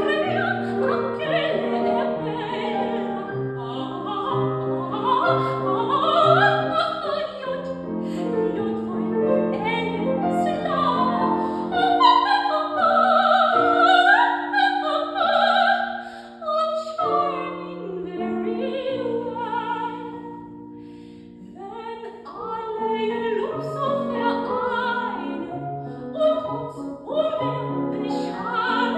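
Classical soprano singing in operatic style with a wide vibrato, accompanied by piano. About two thirds of the way through, the voice rests and the piano carries on softly, then the voice comes back in.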